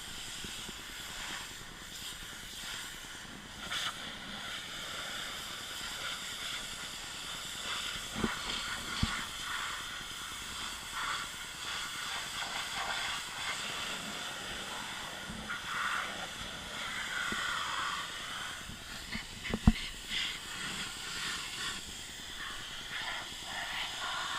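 Pressure washer spray hissing steadily as it washes down a car, its texture shifting as the jet moves. A few short knocks, the sharpest about three-quarters of the way through.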